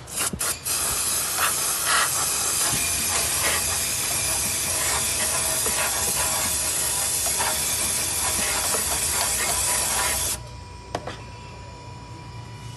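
Loud, steady hiss of a pressurised jet, such as an air blow gun or an aerosol cleaner, held for about ten seconds and cutting off suddenly, over a low steady hum.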